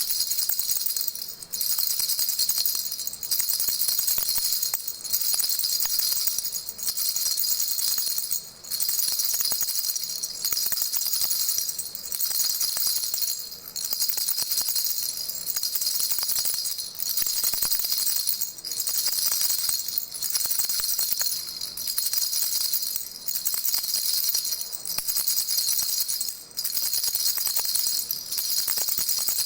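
Baby rattle shaken continuously, a bright, high shaking sound broken by a short pause about every second and a half to two seconds.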